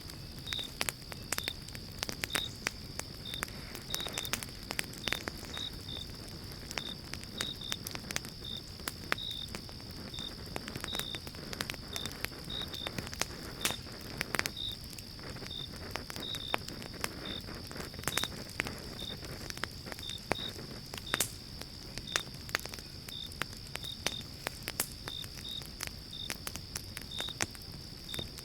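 Wood fire in a fireplace crackling, with irregular sharp pops over a steady high hiss. Short high-pitched chirps repeat unevenly about once or twice a second.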